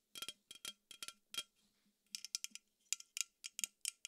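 Long fingernails tapping on an unopened Poppi aluminium soda can, ASMR-style: light metallic clicks with a short ring. There is a steady run of taps, a brief pause about a second and a half in, then a quicker run of taps.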